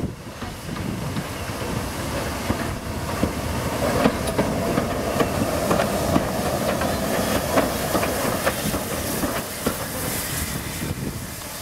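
GER J15 0-6-0 steam locomotive passing slowly at close range, tender first, its wheels clicking and knocking over the rail joints with a hiss of steam. Loudest as the engine draws level, about halfway through.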